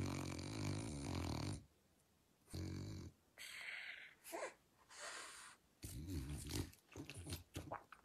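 A flat-faced dog snoring: one long rattling snore fading out about a second and a half in, a shorter snore a second later, then softer snuffling and breathy noises.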